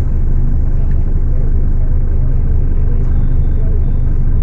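Scania K250UB city bus's rear-mounted diesel engine running steadily under way, a deep even rumble.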